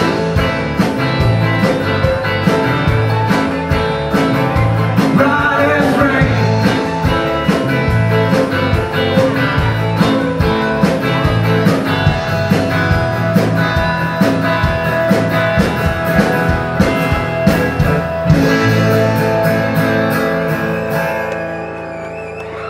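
Live band playing a song with acoustic and electric guitars, bass and drums, the drums keeping a steady beat. Near the end the drums drop out and the final chord rings and fades.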